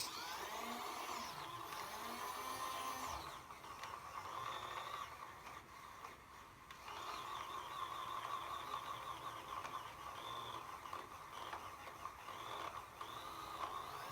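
Small electric motor of a mini makeup brush washing machine running with a steady hum, with some water swishing. The hum eases off briefly around the middle, then picks up again.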